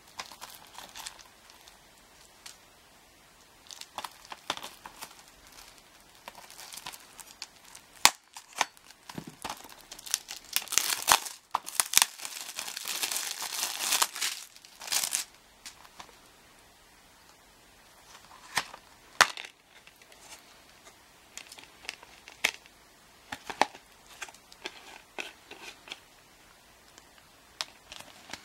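Clear plastic shrink wrap on a DVD case being torn and crinkled off by hand, densest and loudest about a third to halfway through. Scattered sharp clicks of the hard plastic DVD case being handled and opened follow in the second half.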